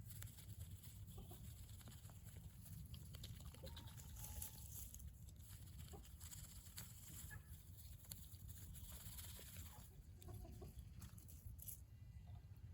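Pekin duck rooting through tall grass: soft rustling and short clicks, with a few quiet squeaky calls, over a steady low rumble.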